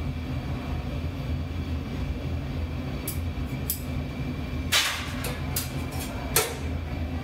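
Steady low roar of a glassblowing studio's gas-fired furnace and burners with their blowers. About halfway through, a few sharp clicks begin, with two louder knocks near the end.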